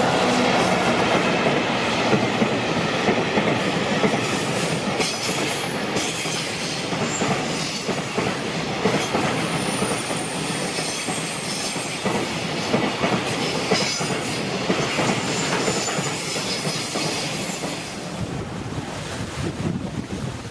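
Container wagons of an electric-hauled freight train rolling past, their wheels clattering over rail joints with a faint high wheel squeal now and then. The clatter fades near the end as the last wagon goes by.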